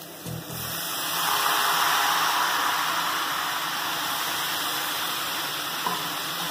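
Water sprinkled by hand onto pumpkin pieces frying with spices in a hot kadai, sizzling. The sizzle swells about a second in and then holds steady.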